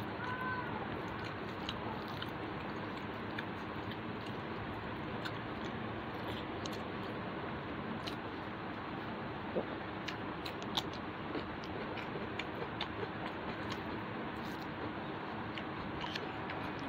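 Eating by hand: soft chewing, with small clicks and squishes of fingers mixing rice on a banana leaf, over a steady background hiss.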